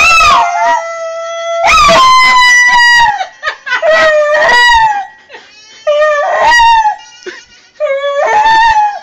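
A Jack Russell–beagle mix dog howling along with a woman who howls at it: a series of about five long, loud howls that rise and fall in pitch, with short gaps between them.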